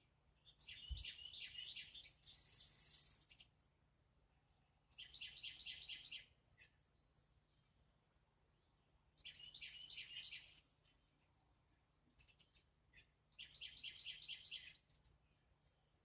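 A songbird singing four short phrases of rapid repeated notes, each about a second and a half long, a few seconds apart.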